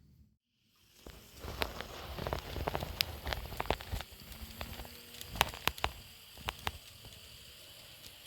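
Hands handling a small plastic model locomotive, fitting its shell back onto the chassis: a scatter of irregular sharp plastic clicks over light rustling.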